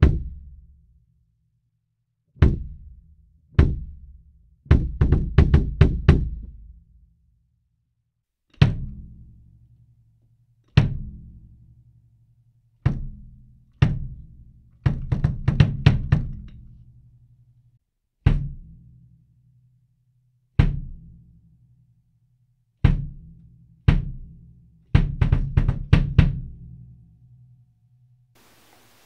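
Kick drum played alone and close-miked with an AKG D112 dynamic microphone. It plays a repeating phrase, about every ten seconds: a few single kicks, each with a booming decay, then a quick run of about half a dozen strokes. For the first half the microphone sits inside the drum off-axis; about halfway through it moves to the shell, under the ride.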